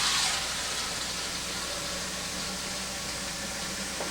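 Water running steadily from a tap into a plastic bottle as it fills, a little louder in the first moment.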